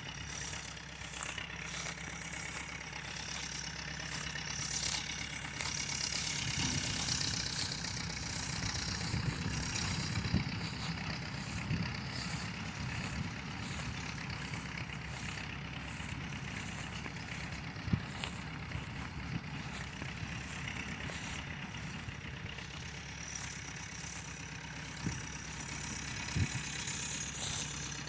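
Tractor engine running steadily, with a few sharp knocks, the loudest about eighteen seconds in.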